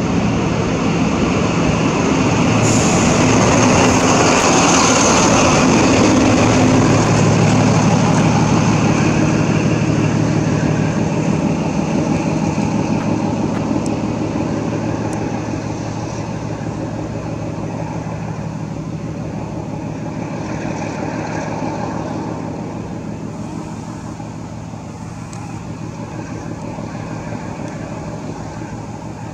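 An XPT train's diesel power car, a Paxman VP185, running under power as the train pulls away past the platform. The engine hum is loudest a few seconds in, with a high whine between about three and six seconds, then fades steadily as the train draws off.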